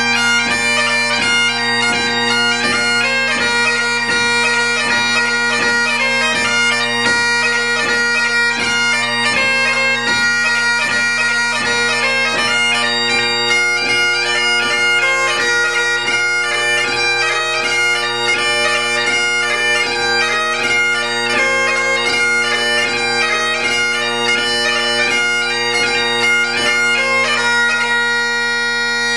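Great Highland bagpipe playing light music (ceòl beag): a quick chanter melody over steady, unbroken drones.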